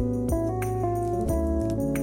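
Instrumental background music: held melody notes that change every half second or so over a steady bass.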